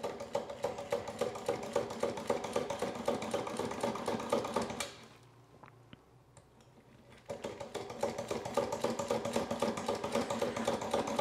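Hand-pumped spiral push drill boring a pilot hole for a hinge screw in hardwood, its ratcheting mechanism clicking rapidly. It stops for about two seconds in the middle, then starts again.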